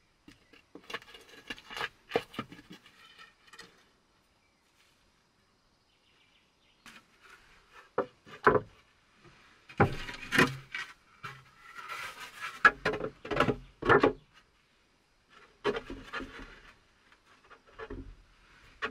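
Wooden boards knocking and scraping against each other and against stone as they are handled and fitted onto a rock ledge, in irregular clusters of clatter with a quiet gap of a few seconds about four seconds in.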